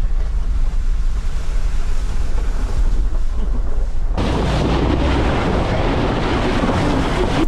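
Mercedes-AMG G63 driving, a heavy low rumble with wind buffeting the microphone; about four seconds in, a loud rushing hiss starts abruptly and keeps on.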